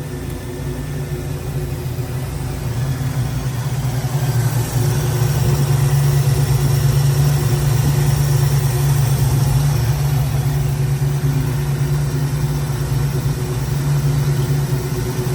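Carbureted car engine idling steadily after its carburetor was fitted and its timing set with a timing light, running smoothly: the best it has sounded in a long time. It gets louder about four seconds in, then holds steady.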